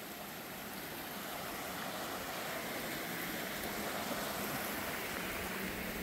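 Steady rushing of river water, growing a little louder over the first few seconds.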